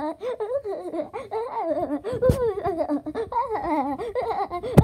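A person laughing in a high, wavering cartoon voice, a SpongeBob impression. There is a knock about halfway through and a louder, sharper one at the very end, from handling.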